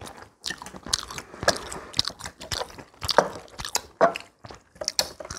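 Several people eating at a close microphone: chewing and biting noises, with short irregular clicks of chopsticks against bowls and plates.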